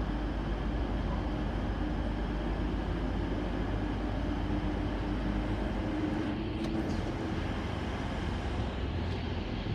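Northern Class 319 electric multiple unit pulling out of the platform and drawing closer, a steady hum with an even low rumble.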